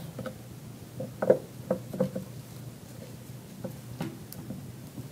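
A few light knocks and clicks of statue pieces being handled and fitted together by hand, irregularly spaced, the loudest a little over a second in.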